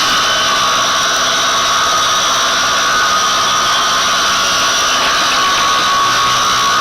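Multi-saw sawmill machinery running steadily, a constant machine noise with a high whine.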